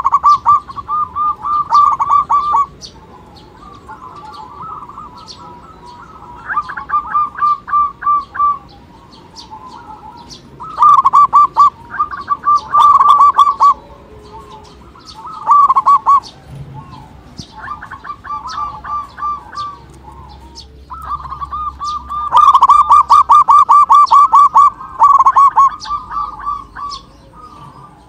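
Zebra dove (perkutut) song: repeated bouts of fast, pulsed cooing notes, each phrase one to a few seconds long with short pauses between, the longest bout near the end.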